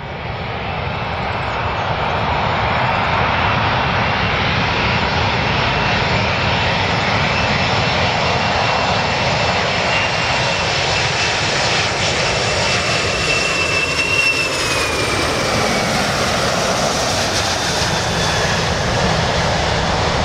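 Jet engines of a four-engine Boeing 747-400 on final approach to land, a steady loud rumble and hiss that swells up at the start. A high whine slides down in pitch about two-thirds of the way through.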